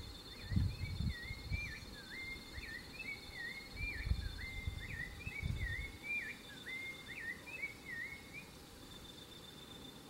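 Rufous-bellied thrush (sabiá-laranjeira) singing a quick run of short warbled notes in about four phrases, stopping a little before the end. Underneath are a steady high insect trill and low rumbles.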